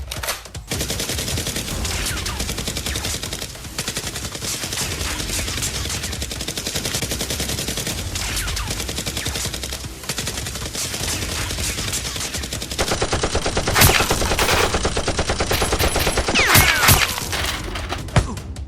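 Sustained rapid gunfire, heard as long automatic bursts. About two-thirds of the way in the fire gets faster and louder, and a few sharp, loud shots stand out near the end.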